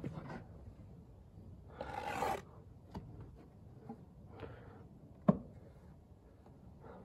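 Steel brick trowel scraping and spreading wet sand-and-cement mortar on a brick while it is laid and the excess mortar is trimmed off. There is a longer scrape about two seconds in, a few light clicks, and one sharp knock a little after five seconds.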